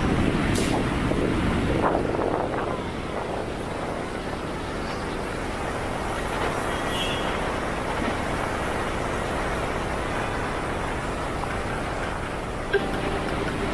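Steady din of city road traffic, with a single light knock near the end.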